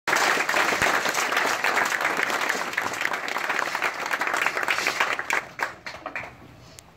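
Audience applauding, a dense clatter of clapping that thins out and dies away about six seconds in, leaving a few last claps.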